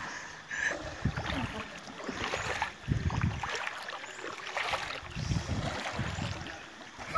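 River water splashing and lapping around paddled boats, with uneven low rumbles of wind on the microphone.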